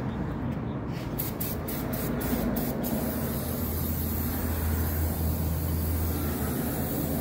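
Aerosol brake cleaner spraying, a steady hiss with several short spurts between about one and three seconds in, as shipping residue is cleaned off new brake rotors.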